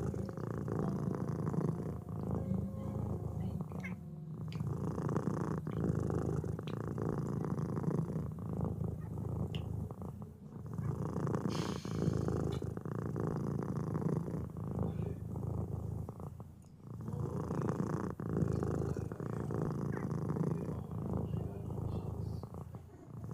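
Domestic cat purring close to the microphone: a steady rumble in long swells, each broken by a brief dip every couple of seconds.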